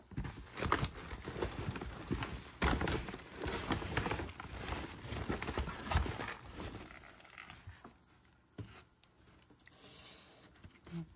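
A run of irregular knocks, taps and rustles, thick for about the first seven seconds and then thinning to a few faint knocks.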